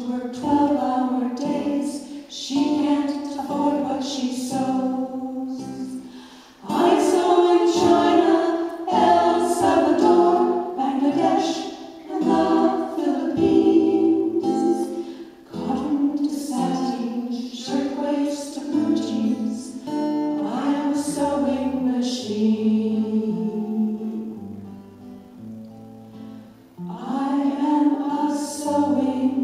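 Six women singing in harmony, accompanied by a strummed acoustic guitar. The singing drops quieter for a couple of seconds near the end, then comes back up to full volume.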